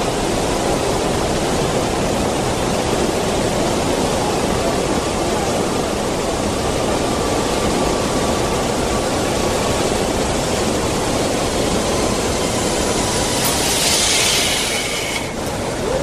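Montmorency Falls, a high waterfall, rushing in a loud, steady, even roar of falling water. A brief louder hiss comes near the end.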